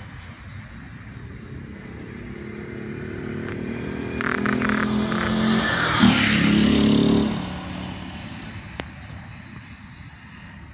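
A motor vehicle passing on the road: its engine grows louder, is loudest about six to seven seconds in, then fades away. A brief click follows near the end.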